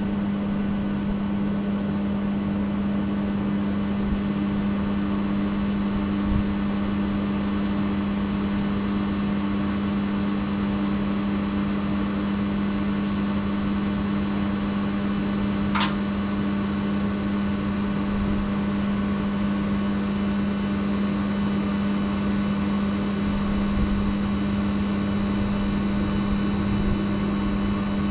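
Steady, loud electrical or mechanical hum with a strong low tone, unchanging throughout, and one brief sharp click about sixteen seconds in.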